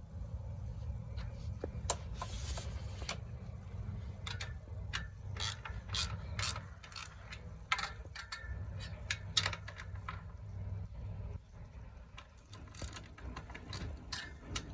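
Ratcheting socket wrench clicking in short, irregular runs as the front-wheel axle nuts of an electric bike are tightened.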